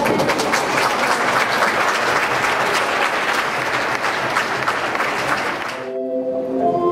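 Audience clapping, dense and steady, that cuts off suddenly about six seconds in as instrumental music with long held notes begins.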